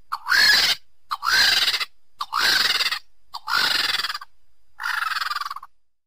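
Vultures calling: five harsh, hissing screeches, each under a second long, each opening with a brief rising note, with short gaps between them.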